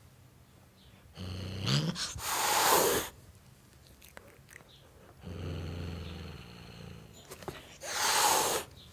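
Tom cat hissing twice, each sharp hiss coming after a low growl, as the cat threatens a dog.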